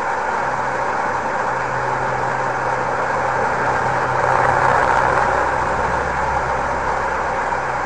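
DX440 portable receiver tuned to 188 kHz longwave, giving out a steady hiss of band noise centred in the midrange, with a steady low hum beneath it. The hiss grows a little louder about halfway through.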